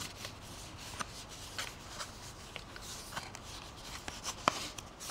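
Hands turning and working at a small cardboard cube box to open it: faint rubbing of cardboard with scattered light clicks and taps, and one sharper click near the end.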